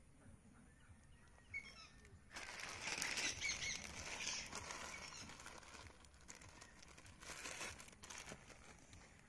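Plastic bags of puffed rice crinkling and rustling as they are handled, starting about two seconds in and going on unevenly.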